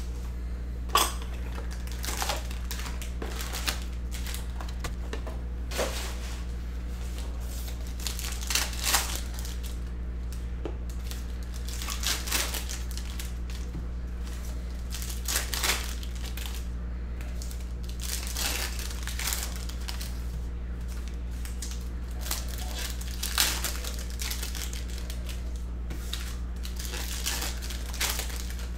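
Foil trading-card pack wrappers crinkling and tearing as packs are opened by hand, in irregular bursts, over a steady low hum.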